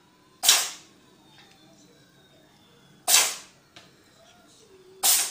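A cat sneezing three times, each a sharp, short hissing burst: once about half a second in, again about three seconds in, and once more near the end.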